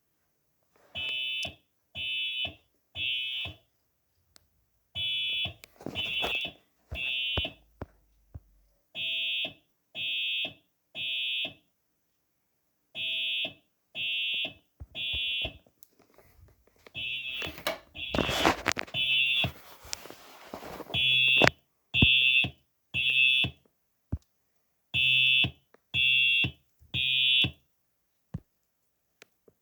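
Simplex TrueAlert fire alarm horn sounding the temporal-three evacuation pattern: three short tones about a second apart, then a pause, repeated seven times before it stops near the end. Scattered clicks and a burst of rustling noise come partway through.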